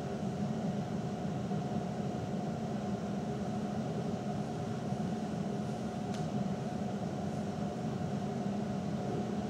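Steady low mechanical hum of the room's background noise, with one brief faint click about six seconds in.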